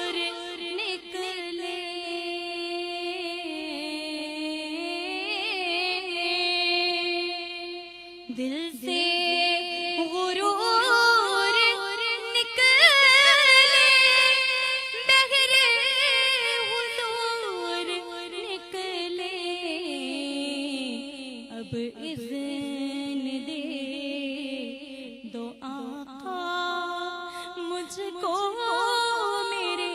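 Women's voices singing a naat unaccompanied, in long held notes with wavering ornaments and slides between pitches.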